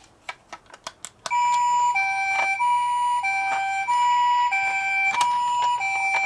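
A few sharp clicks, then about a second in a toy ambulance minicar's electronic siren starts: a two-tone hi-lo wail, alternating steadily between a higher and a lower note, each held about two-thirds of a second.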